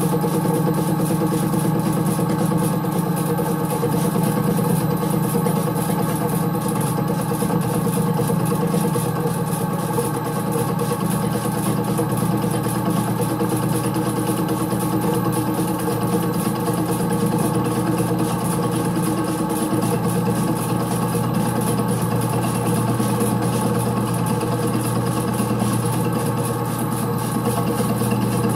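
Mini lathe running at low spindle speed, driving a milling cutter through a full-depth cut taken in one pass. A steady mechanical hum, with slight shifts in pitch about ten and twenty seconds in.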